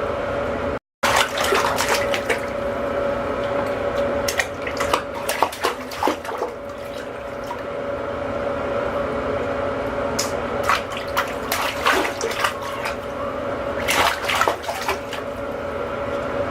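Water running steadily into a bathtub, with splashing in the bathwater at intervals.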